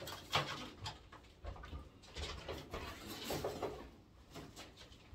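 Homing pigeons cooing, with scattered knocks and rustles as a cardboard shipping box of birds is handled.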